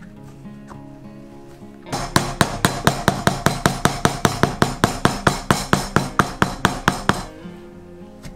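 Background music. About two seconds in, a fast, even run of hammer strikes on metal begins, about five a second, and stops about five seconds later.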